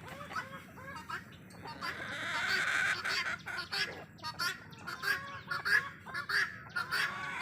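Poultry calling: many short, overlapping clucks and squawks from a flock of country chickens, with a louder, longer stretch of calling about two seconds in.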